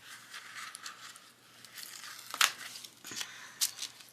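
Sticker sheets and paper being handled and leafed through, rustling and crinkling, with a few sharper crackles in the second half.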